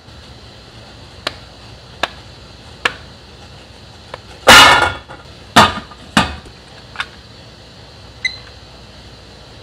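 Pieces of sweet potato knocking against a stainless-steel steamer basket as they are dropped in, several heavy knocks and lighter clicks, followed near the end by a short beep from a digital kitchen timer.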